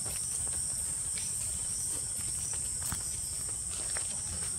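A steady, high-pitched chorus of insects trilling, with faint running footsteps on a paved path.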